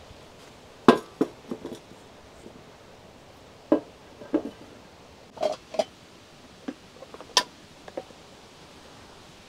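A scattered series of about a dozen sharp knocks and clacks, as of objects being set down and handled, the loudest about a second in.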